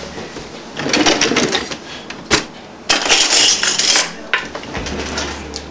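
Metal cutlery clattering and clinking as a spoon is fetched from among the kitchen utensils. It comes in irregular bouts, with one sharp click about two and a half seconds in and the loudest, longest rattle around the third and fourth seconds.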